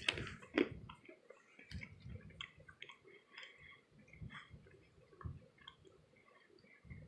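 A person chewing crunchy peanuts close to the microphone: faint, irregular crunches and soft thumps of the jaw, a little louder in the first second.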